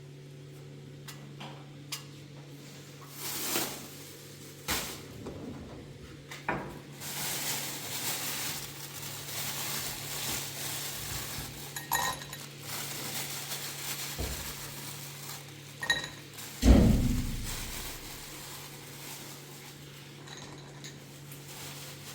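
Clinks and knocks of dishes and utensils being handled, over a steady low hum, with one heavy thump about seventeen seconds in.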